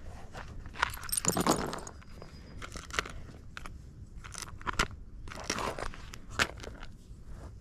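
Footsteps crunching at an uneven pace, a cluster of louder crunches about a second in.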